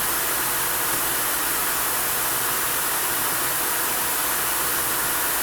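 Steady, even hiss that does not change, with no distinct events.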